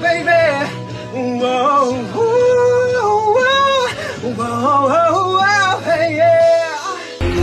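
A male pop singer sings a vocal ad-lib into a studio microphone, his voice sliding and bending between notes, over a low, steady backing track. Near the end, a louder, fuller pop track cuts in.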